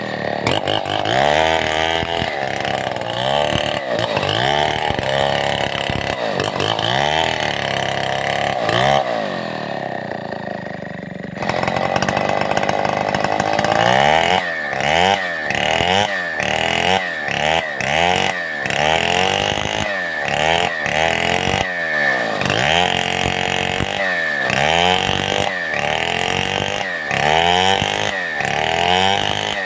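Stihl 070 two-stroke chainsaw engine running hard, its pitch rising and falling over and over with the throttle and load. Partway through it holds a steadier, lower note for a couple of seconds, then goes back to quick revving about once a second.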